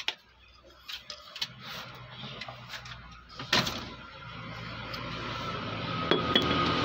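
Light clicks and knocks from the metal motor housing of a dismantled ceiling fan being handled, with one sharper knock about three and a half seconds in. A steady background noise grows louder over the last few seconds.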